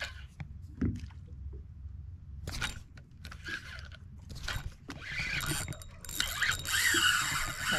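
Spinning reel worked by hand with a few clicks, then about five seconds in the reel's drag starts buzzing and keeps building: a big fish, a bull red drum, has taken the jig and is pulling line off the spool.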